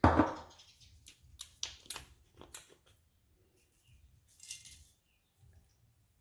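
Garlic granules being sprinkled from a plastic jar onto seafood in a baking pan. A knock at the start, a few light clicks and taps of the jar and lid, then a brief shaking hiss of granules about four and a half seconds in.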